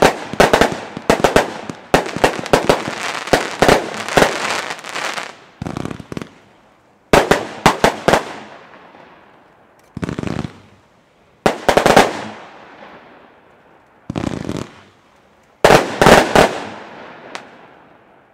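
Weco Overpressure 176-shot 20 mm compound firework cake firing: a dense, rapid string of shots through the first five seconds, then several shorter volleys a second or two apart, each trailing off after the bangs.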